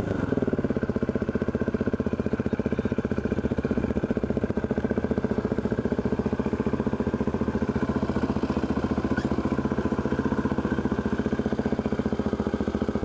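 KTM motorcycle engine running steadily at low revs, an even, pulsing engine note with no revving, as the bike rolls slowly.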